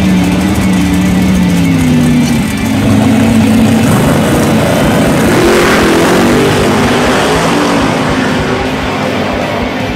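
Loud drag car engine running, its pitch rising as it revs up about halfway through, then easing off toward the end.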